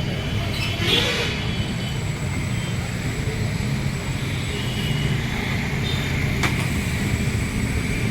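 Steady road traffic noise, with a short rising-and-falling tone about a second in.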